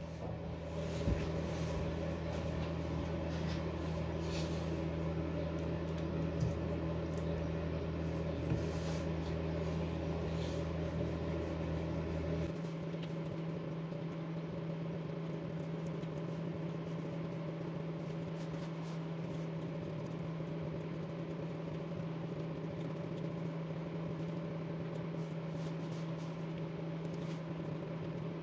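Electric fan heater running with a steady hum; its lowest part drops out about twelve seconds in while the rest of the hum carries on. A few faint knocks of wood pieces being handled sound over it.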